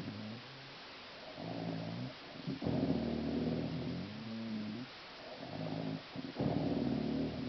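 A woman snoring in a steady cycle. About every four seconds comes a long, loud snore that lasts a second or two, and a softer breath falls between each pair of loud snores.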